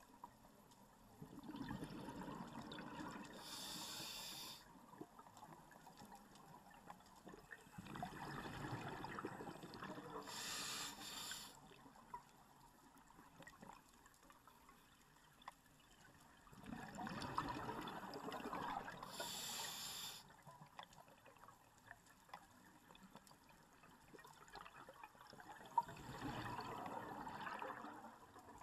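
A scuba diver breathing through a regulator underwater. Four exhalations, each a few seconds of bubbles gurgling out, come about every seven to nine seconds. The first three are followed by the short high hiss of the regulator as the next breath is drawn.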